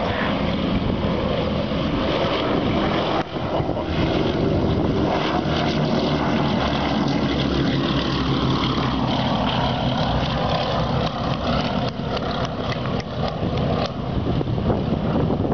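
B-17G Flying Fortress's four Wright R-1820 Cyclone radial engines at full power on takeoff and climb-out, a steady heavy multi-engine propeller drone. Its pitch drops as the bomber passes by about halfway through.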